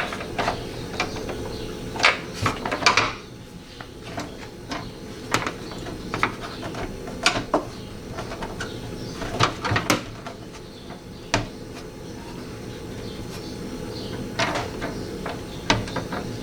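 Irregular clicks and knocks of the plastic window-regulator clips and metal door parts being handled and fitted, with the busiest clusters a couple of seconds in, near the middle and near the end.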